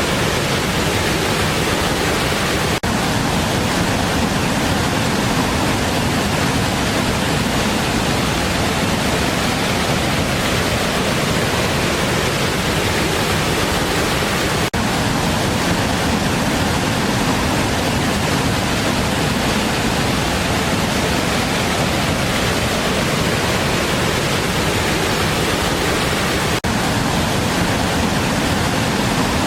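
Big waterfall: a loud, steady rush of falling water, dipping for an instant three times.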